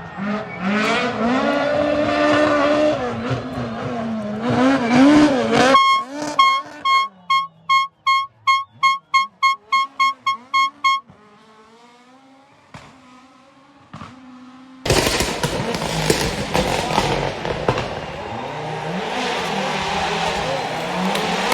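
Rally car engine revving up and down through gear changes. Then comes a run of about fifteen short beeps at one pitch, followed by a quiet stretch. A sudden loud rush of engine and tyre noise breaks in about fifteen seconds in.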